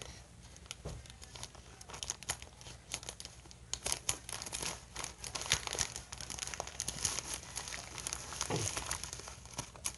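Plastic poly mailer bag crinkling and rustling as it is handled and cut open with scissors: dense, irregular crackles and snips.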